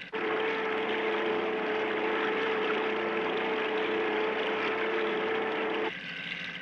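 Cartoon sound effect of the Mach 5 running underwater: a steady rushing drone with a held hum, cutting in suddenly and stopping sharply near the end.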